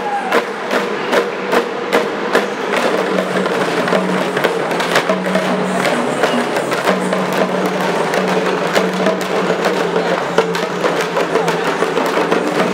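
Parai frame drums beaten with sticks by a troupe of drummers, a fast and dense stream of sharp strokes.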